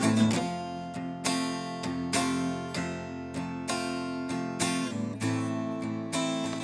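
Acoustic guitar strummed, single chords struck about once a second and left to ring.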